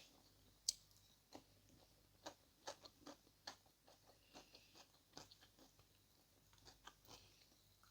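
A person chewing a piece of steak close to the microphone: faint, irregular mouth clicks and smacks, a couple a second.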